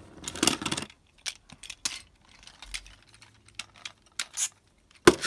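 Two Beyblade spinning tops clashing in a stadium bowl: a scraping rattle in the first second, then a run of sharp clicks and clacks as the tops strike each other and the stadium. A louder clack comes near the end.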